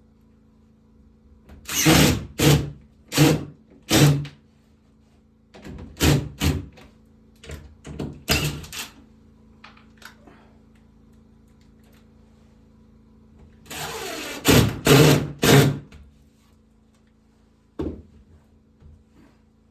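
Woodworking tool noise: loud short strokes in three clusters, a handful at a time, over a steady low hum.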